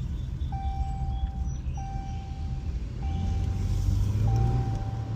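Jeep engine running under way, its rumble climbing in pitch and loudness about three seconds in, while a steady electronic beep repeats about every second and a quarter.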